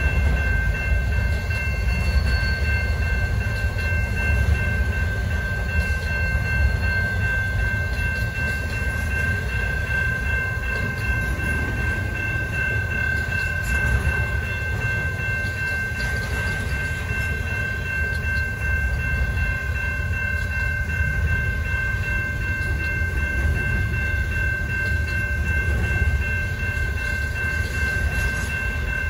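Intermodal freight train cars loaded with containers and trailers rolling steadily through a grade crossing with a continuous low rumble. The crossing warning bell rings steadily over it.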